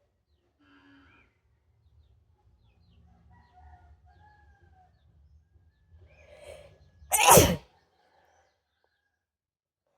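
A person sneezing once, a short loud burst about seven seconds in, after a few seconds of faint breathy build-up sounds.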